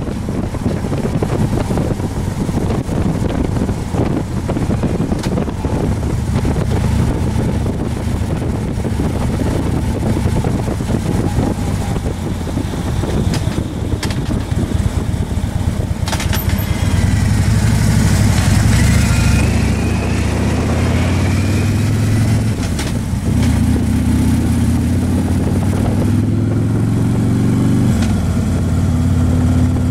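Motorcycle engine running under way, with wind noise on the microphone. In the last third the engine pitch climbs as it accelerates, then drops about two seconds before the end as it shifts gear.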